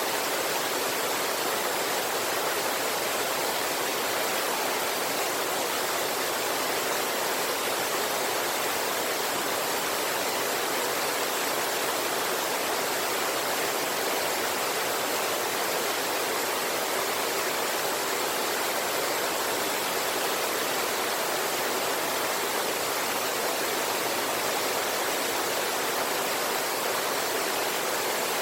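Flowing river water and a waterfall: a steady, even rush of water that does not change or break.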